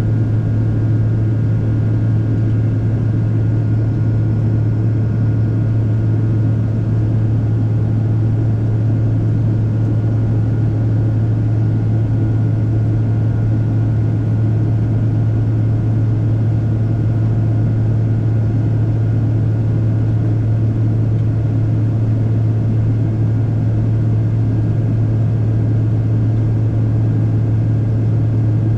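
Cabin noise inside a Boeing 777-300ER in flight, heard from a window seat beside its GE90-115B engines: a steady, unchanging low drone with a faint steady whine above it.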